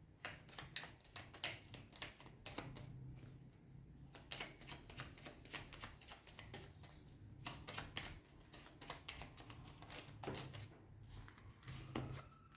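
A deck of Cigano fortune-telling cards being shuffled and handled by hand: quick, irregular soft clicks and flicks in spells with short pauses, as the reader draws for another card.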